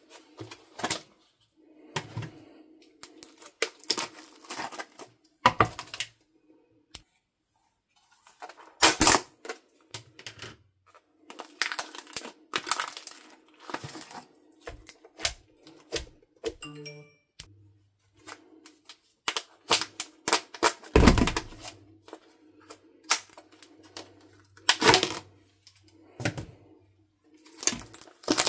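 Crunchy slime being pulled, squeezed and pressed by hand: irregular bursts of crackling, clicking pops, with a louder thud about two-thirds through.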